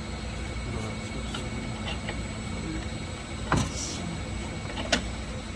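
Steady background hum of a repair shop, broken by two sharp knocks about a second and a half apart, the first with a short ringing tail, as exhaust parts and tools are handled during the exhaust install.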